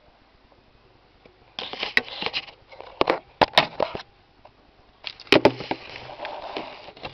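Two bursts of clicks, knocks and rustling as things are handled inside a freezer, the first about one and a half seconds in and the second about five seconds in.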